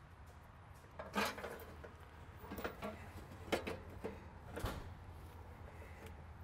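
A finned metal cooler core being slid out of a tractor's radiator and cooler stack, knocking and clattering against its frame about four times between one and five seconds in.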